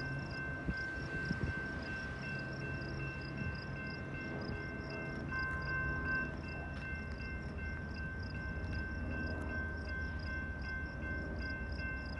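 Railroad grade-crossing bell ringing with an even, rapid rhythm, over a low rumble of the approaching train's diesel locomotives in the distance.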